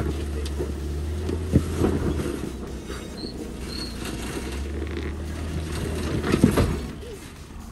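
Jeep Wrangler crawling up a rock ledge: the engine rumbles low and steady while the tyres and underside grind and creak against the rock, with a sharp knock about a second and a half in and a louder one near the end.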